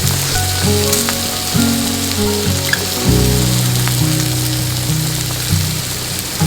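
Meat sizzling as it grills, with rain falling. Background music with held low chords that change every second or so is the loudest sound.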